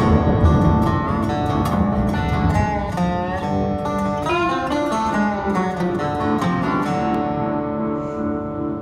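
Outro music led by acoustic guitar strumming; near the end the strumming stops and the last chord rings out and fades.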